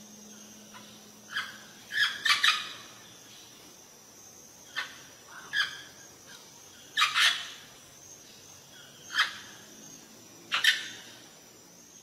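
An Amazon parrot giving short, harsh squawks, about eight in all, some coming in quick pairs. A faint steady high-pitched tone runs underneath.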